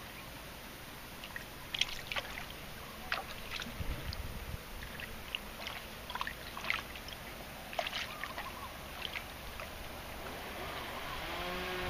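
Pond water sloshing against the edge, with short irregular splashes and plops at the surface and a low thump about four seconds in.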